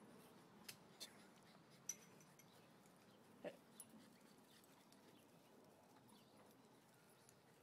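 Near silence with a few faint sharp clicks and one short dog yip about three and a half seconds in, as small dogs play together.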